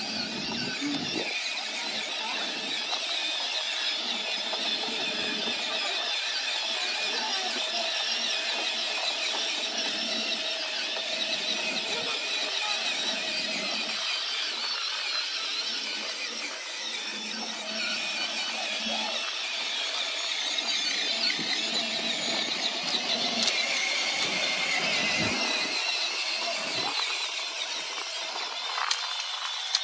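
Battery-powered ride-on toys, a toy tractor and a Power Wheels Dodge truck, driving over grass: the steady whine of their small electric motors and plastic gearboxes.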